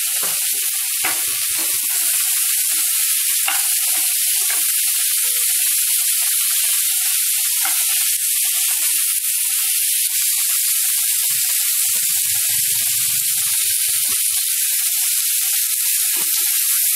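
Sliced onions, tomatoes, garlic and dried red chillies sizzling steadily in hot oil in a nonstick pan, with a wooden spatula stirring and giving a few short clicks against the pan.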